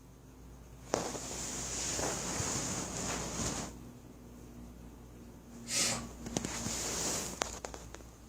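Snorting, hissing breaths through the nose in two spells, the first about three seconds long and the second about a second and a half, with a few sharp clicks after the second. They are attempts to sneeze that never come out.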